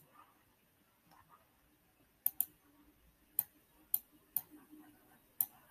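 Faint sharp clicks from computer controls, about six spread over a few seconds with a close pair among them, as lecture slides are advanced.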